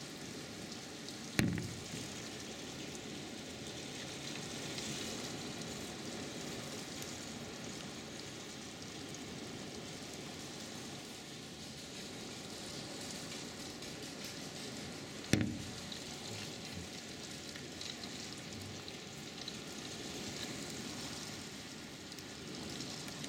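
Heavy rain pouring down steadily, a dense hiss of rain on a wooden deck and the yard. Two sharp knocks cut through it, one about a second and a half in and another about fifteen seconds in.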